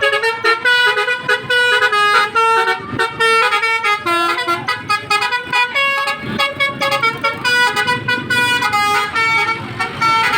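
Telolet basuri musical bus horn playing a quick melody, short stepping notes following one another with hardly a pause.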